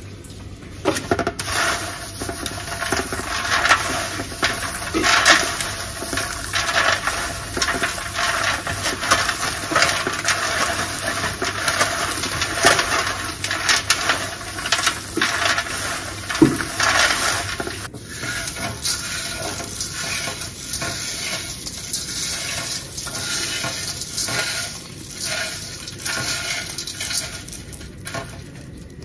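Roasted peanuts being rubbed between the hands on a foil-lined pan and in a metal colander to loosen their skins: a steady rattling and crinkling of nuts against foil and metal. It grows somewhat quieter a little past halfway.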